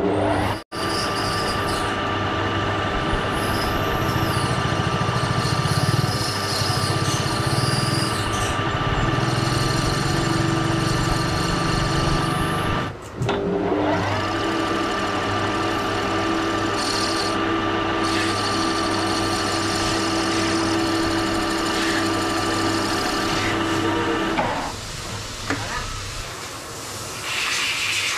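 Metal lathe running with its chuck spinning while a cutting tool turns down a wooden workpiece: a steady machine hum with a high whine. It breaks off briefly about halfway and drops to quieter handling sounds a few seconds before the end.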